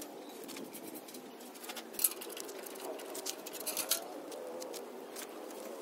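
A body-filler spreader scraping and tapping on the steel side panel of a pickup bed as filler is worked on. There is one sharp click about two seconds in, then a run of short scrapes for the next two seconds.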